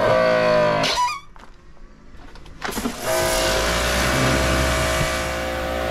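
Powerstroke 1900 PSI electric pressure washer switched on: its motor runs for about a second and stops, then about three seconds in starts again and runs steadily, a hum with fixed tones under a hiss.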